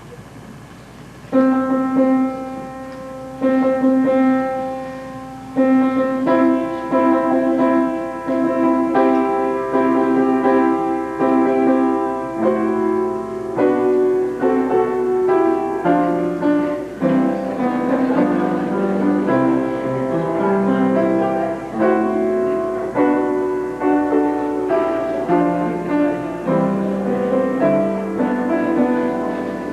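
Piano playing the wedding recessional, starting about a second and a half in with slow, sustained notes and chords.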